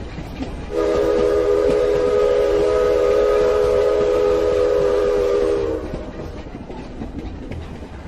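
A train whistle blows one long chord of several notes together for about five seconds, its pitch sagging slightly as it stops, over the low rumble of a moving train that fades away afterward.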